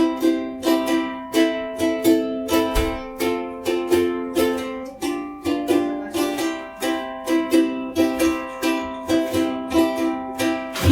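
Ukulele strummed chords in a steady rhythm, about two to three strums a second: the instrumental intro of a song.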